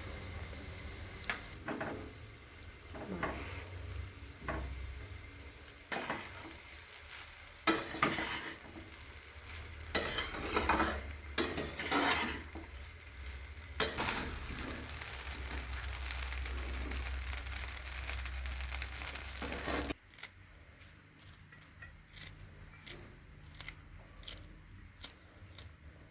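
Fried rice sizzling in a pan as it is stirred and scraped with a utensil, with frequent scraping clatters. About twenty seconds in, the sizzle cuts off suddenly, leaving lighter scrapes and taps.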